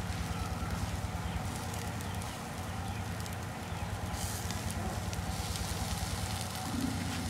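Charcoal fire crackling under meat grilling on a wire grate, with scattered small pops, over a steady low hum.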